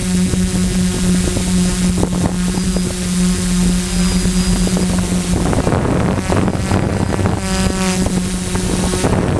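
DJI F450 quadcopter's electric motors and propellers buzzing steadily in flight, heard from the camera carried on it, with rushing propeller wash. Just past the middle the buzz turns rougher and the rushing grows louder.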